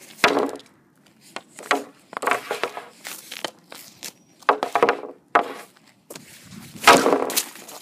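Hockey stick blade and pucks on a white shooting board as shots are taken: a quick series of sharp knocks and slaps from the blade and puck striking the board, the loudest near the end.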